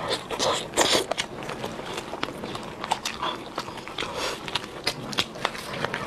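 Chewing and lip-smacking on steamed chicken, a string of irregular wet mouth clicks.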